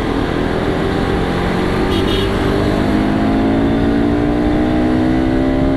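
Motorcycle engine accelerating hard, heard from the rider's seat, its pitch climbing smoothly and steadily in one gear.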